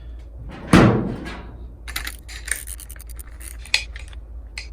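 Hand tools working the top nut on a coilover's shock shaft: a clunk just under a second in, then a run of quick metallic clicks and scrapes as the nut is tightened with a wrench.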